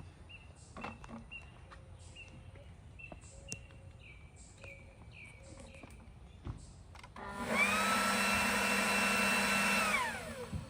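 Leaf blower run in one short burst of about three seconds: its motor whine rises as it spins up, holds steady, then winds down. Before it come only faint, short chirps and a few light clicks.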